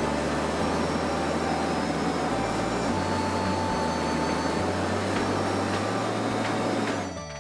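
Train running on the Kuranda Scenic Railway: a steady, loud rumble and rushing noise of the moving train. It cuts off abruptly near the end.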